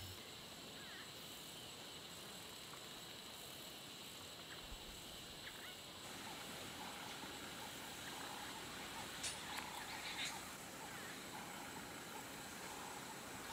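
Faint outdoor ambience: a steady low hiss with a few short, distant bird calls about nine to ten seconds in.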